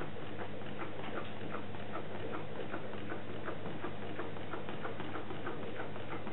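Homemade Stirling engine running, its mechanism ticking lightly and evenly at about three or four ticks a second over a steady low hum.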